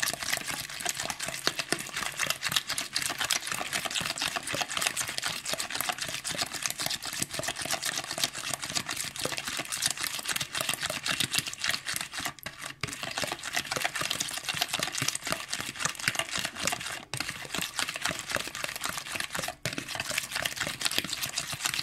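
Hand whisk with red silicone-coated loops beating eggs and sugar in a bowl: a fast, steady clicking clatter of the whisk against the bowl, broken by a few short pauses.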